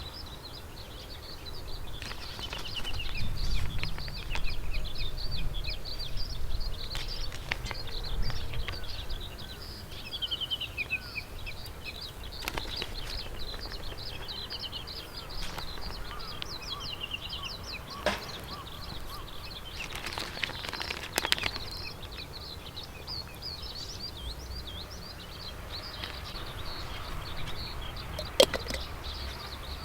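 Small birds chirping and twittering in quick repeated phrases, with a few sharp clicks and a low rumble through the first several seconds.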